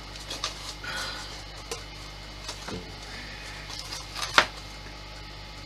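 Parts of a scale-model Spitfire being handled during disassembly: scattered light clicks and taps, with one sharper click a little past the middle.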